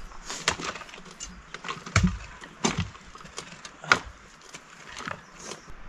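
Irregular sharp knocks and cracks of wood, about a dozen strokes at uneven spacing, the loudest about two and four seconds in.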